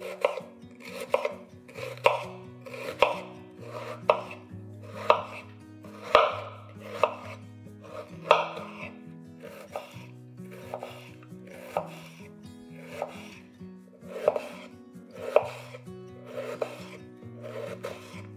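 Kitchen knife chopping an onion on a bamboo cutting board: a series of short, sharp knocks of the blade on the board, about one a second, some coming in quick pairs.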